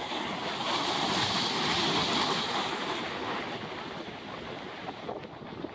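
Sea surf breaking and washing in over jetty rocks, a wash that swells about half a second in and eases off after about three seconds.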